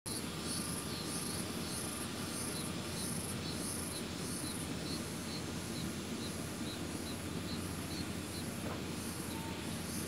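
Insect chirping in a steady rhythm, about two high pulses a second, over a steady low background hiss.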